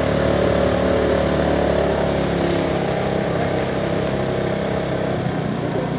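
Vehicle engine running steadily, a low drone with higher steady tones over it that fade about five seconds in.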